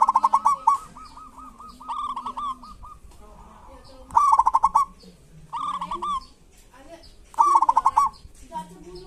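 Zebra dove (perkutut) giving its 'kerot' call: short bursts of rapid stuttering notes, repeated about every second and a half to two seconds, some louder than others. Softer low cooing runs beneath them.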